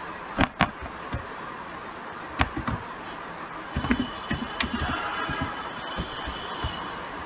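Computer keyboard and mouse clicking in short, irregular clicks over a steady hiss of room noise. The clicks are thickest about four to five seconds in, when a faint steady tone also comes in.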